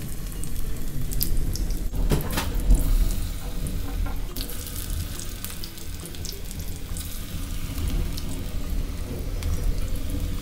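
Hot oil sizzling in a pan as batter-coated onion and potato pakoras are dropped in to deep-fry, with scattered pops over a steady low rumble.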